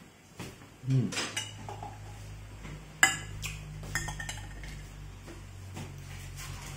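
Metal spoon clinking and scraping against a white ceramic bowl while eating noodle soup: several sharp clinks, the loudest about three seconds in. A low steady hum comes in about a second in underneath.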